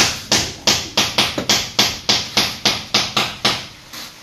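Hammer blows in a steady, even series of about three a second, each a sharp ringing strike, stopping about three and a half seconds in.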